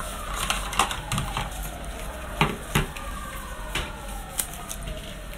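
Scattered light clicks and taps, about six of them with the loudest pair about two and a half seconds in, from handling a phone's cardboard retail box and its small paper SIM-ejector sleeve.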